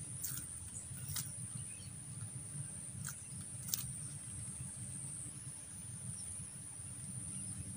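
Steady high-pitched insect buzz, with four short sharp ticks in the first four seconds and a low rumble underneath.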